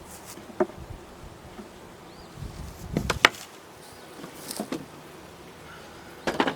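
Honey bees buzzing around an open hive box, with several sharp wooden knocks as the frames are pushed together; the loudest knock comes about three seconds in.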